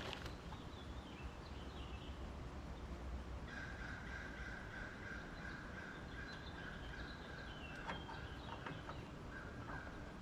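Quiet outdoor background with birds chirping and a steady high-pitched tone for several seconds, broken by a few light clicks.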